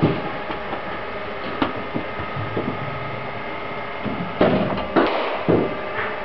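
Steady mechanical hum in an indoor cricket net hall, with scattered sharp knocks and clicks. A run of louder thuds and clatters comes about four and a half to five and a half seconds in.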